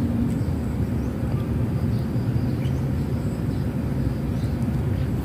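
Steady low rumble of outdoor background noise with no distinct events; a faint hum fades out just after the start.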